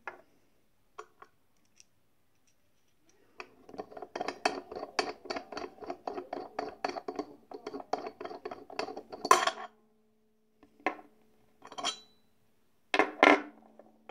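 Small steel dies of a manual snap and eyelet hand press clinking and rattling against each other in the hand, a quick run of clinks for several seconds, then a few separate sharp metal clacks as dies are fitted onto the press.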